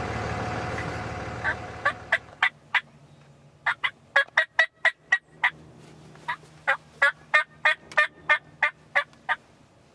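Turkey yelping in three runs of short, sharp notes, about four a second. A vehicle engine's steady running fades out during the first two seconds.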